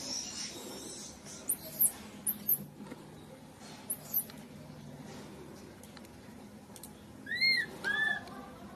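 Infant macaque squeaking: a few very short, very high squeaks in the first half, then two arched cries near the end, each rising and then falling in pitch.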